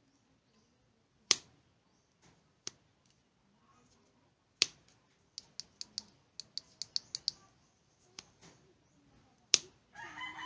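Push-button switch of a mini LED police flashlight clicking as its light modes are cycled: single clicks a second or two apart, then a quick run of about ten clicks, then two more. Near the end a rooster starts crowing.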